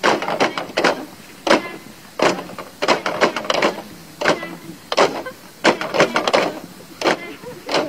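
Bamboo poles of a bamboo pole dance clacking together and knocking on the base poles in a steady rhythm, sharp hollow knocks coming in quick clusters of two to four about every three-quarters of a second.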